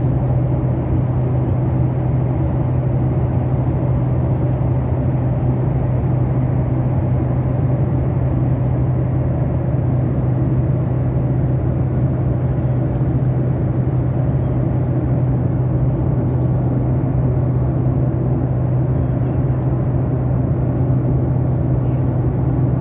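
Steady drone inside an airliner cabin: engine and airflow noise with a strong low hum, unchanging throughout.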